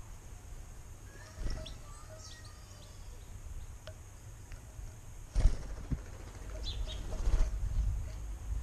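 Birds at a garden birdbath, with common starlings in view: short high chirps about a second and a half in and again near the end. Sudden thumps of wings flapping come about a second and a half and five and a half seconds in, with a noisier spell of flapping and splashing around seven seconds in. A low wind rumble on the microphone runs underneath.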